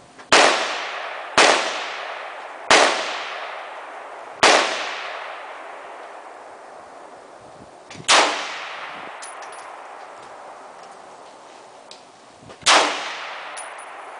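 Scoped rifle fired from a bipod, six single shots at uneven gaps: four in quick succession, then two more several seconds apart. Each shot is followed by a long echo that dies away over a few seconds.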